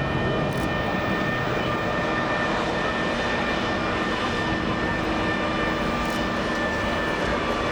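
Aircraft turbine running steadily on the ground: a constant whine of several held tones over an even rumble, with no change in pitch or level.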